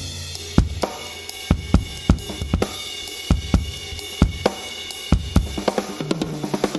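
Drum kit played through a Yamaha EAD10 drum module: a groove of bass drum and snare hits with ringing cymbals and hi-hat, the module adding its sound-sample effects.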